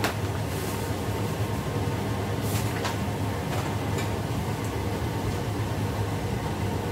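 Kitchen range hood fan running with a steady low hum and rush of air, with a few light clicks and rustles from handling a flour packet and a steel pot about halfway through.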